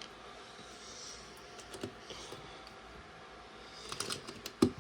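LEGO plastic pieces being handled and snapped together by hand: a few scattered light clicks, then a quick run of sharper clicks near the end.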